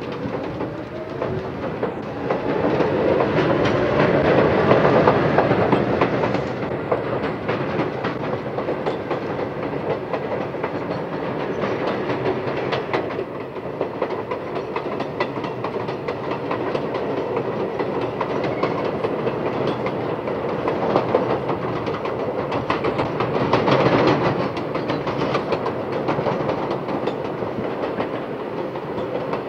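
New York City subway train running, heard from inside the car. The motors whine, rising in pitch over the first few seconds as the train picks up speed, then settle into a steady rumble with the wheels clacking over the rail joints.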